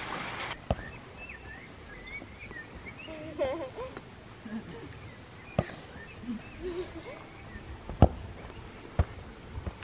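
Steady high drone of insects, with a few sharp thuds of a football being kicked on artificial turf, the loudest about eight seconds in. A brief wavering call, like a child's voice, comes about three and a half seconds in, and there are a few bird chirps.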